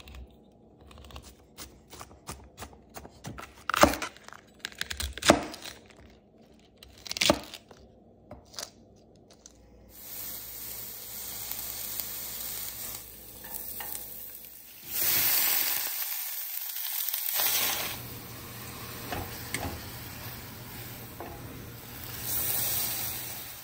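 A can opener clicking around the rim of a sardine can, with a few louder sharp knocks. Then oil sizzles in a frying pan as chopped red onion and bok choy are sautéed and stirred, swelling to a louder sizzle for a few seconds partway through and again near the end.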